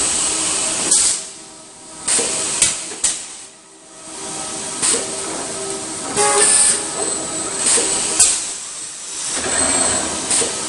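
Robotic assembly-cell noise: short bursts of compressed-air hiss and several sharp clunks from pneumatic clamps and robot grippers working on a sheet-metal panel fixture, over steady machinery noise.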